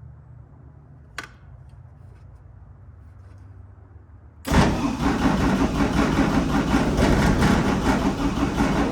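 A single click about a second in, then about four and a half seconds in a turbo diesel engine starts abruptly and runs loudly and steadily. It was started by feeding 12 volts straight to its starter and fuel solenoid.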